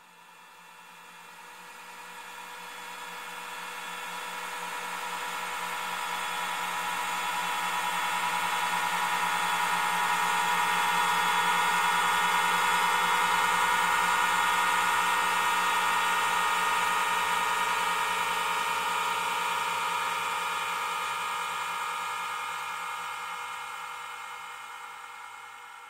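A sustained, many-toned droning whine of unchanging pitch that slowly swells up to loud around the middle and then slowly fades away.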